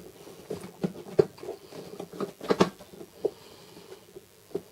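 Irregular light clicks and taps of hard plastic parts being handled as round panel-mount sockets and their caps are fitted into a plastic case, with the sharpest knocks about a second in and about two and a half seconds in.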